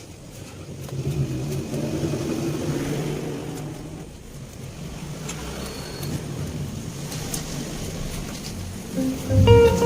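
A motor vehicle engine running with a low hum that swells over the first few seconds, eases off, then holds steady. Guitar music comes in near the end.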